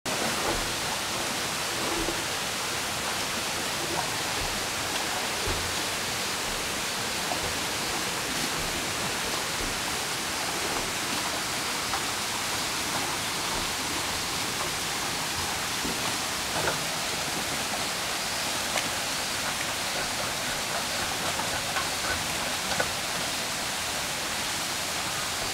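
Steady rush of running water at a small mountain-stream dam, with a few faint knocks.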